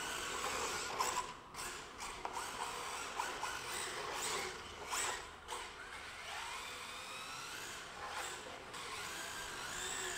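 Electric RC drift car's motor whining, its pitch rising and falling again and again as the throttle is worked through the drifts.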